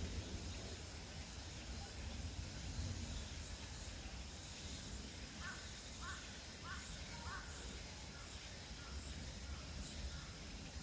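A bird calling outdoors: four short notes in quick succession, about half a second apart, roughly halfway through, over a steady low background rumble.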